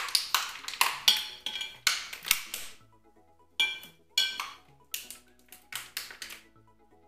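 Rustling and clicking of small decoration materials handled at a table, in quick clusters of short sharp noises with pauses between, over quiet background music.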